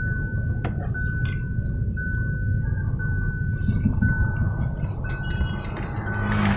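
An electronic warning beep at one steady pitch repeats about once a second, each beep nearly a second long, over the low rumble of the car's engine and tyres inside the cabin. The beeping stops about six seconds in, and a few short clicks follow near the end.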